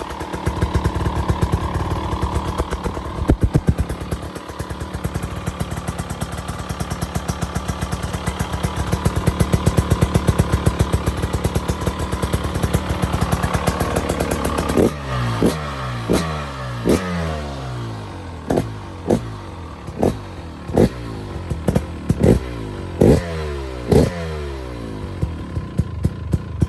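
2025 GasGas EC300 GP's 300cc two-stroke single-cylinder engine running through its stock exhaust with no spark arrestor fitted, held at a fast idle that rises a little over the first half. It is then blipped in a string of quick throttle stabs, about one a second, each rev dropping straight back, before settling to a steady idle near the end.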